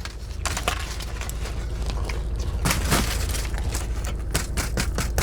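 Close-up chewing of a crusty grinder roll: a run of crisp crunches and mouth clicks, getting denser near the end, over a steady low hum.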